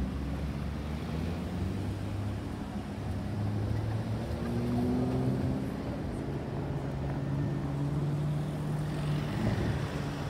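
Lamborghini Urus twin-turbo V8 exhaust at low revs, over street traffic noise. Its pitch rises gently a few seconds in, then settles into a steady low note.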